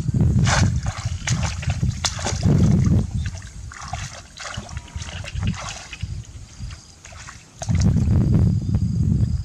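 Water splashing and sloshing irregularly, as in hands or feet working through shallow water, with scattered clicks. Heavy low rumbling comes in the first few seconds and again near the end.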